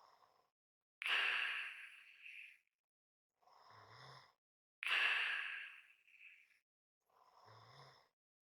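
A person's slow, heavy breathing: loud breaths begin sharply about every four seconds and fade out, each ending in a light whistle. Between them come quieter breaths with a faint low rasp, almost a snore.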